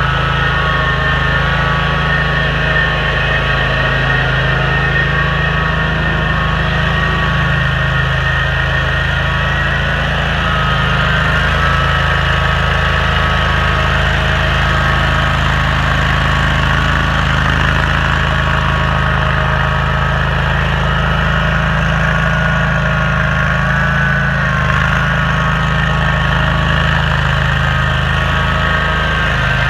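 The engine of a 2014 Toro STX-26 stump grinder running steadily at an even speed: a constant low drone with a steady high whine over it.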